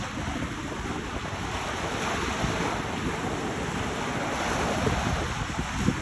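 Small sea waves breaking and washing up a pebble beach in a steady hiss, with wind rumbling on the microphone.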